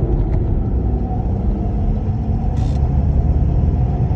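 Ford Mustang S550 being driven, heard from inside the cabin: a steady low rumble of engine and road noise. A short hiss comes about two and a half seconds in.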